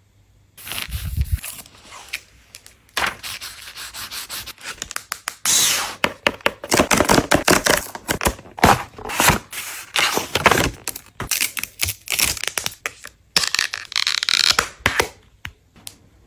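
Packaging being handled during an unboxing: irregular rubbing, scraping and tearing noises with sharp crackles, as of plastic film and cardboard being pulled and peeled.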